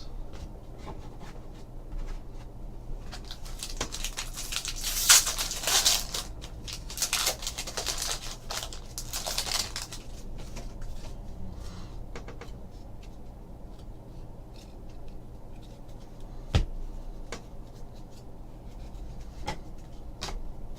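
Foil trading-card pack wrapper crinkling and tearing open, followed by quieter handling of the cards, with one sharp tap past the middle.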